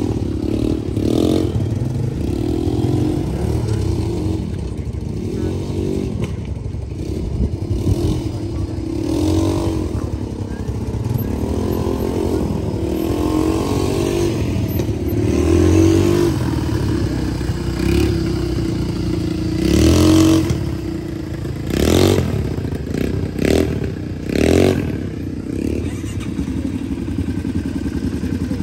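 ATV (quad bike) engines running, the pitch rising and falling with the throttle. A few sharp knocks come about two-thirds of the way through.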